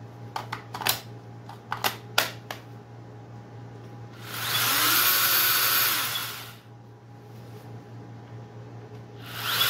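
Ryobi 18-volt brushless pruning chainsaw: a few plastic clicks and knocks as the battery pack goes in, then the motor runs the chain up for about two seconds and winds down, and starts again near the end. It is a little slow to start.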